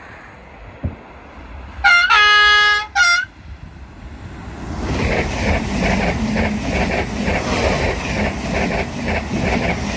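Train horn: one blast of about a second, then a short toot. The train then passes with a steady rhythmic clatter of wheels on the rails.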